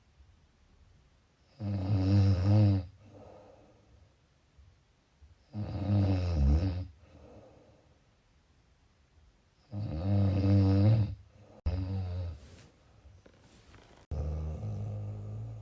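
A person snoring loudly in a slow rhythm: four rattling snores about four seconds apart, each followed by a softer breath.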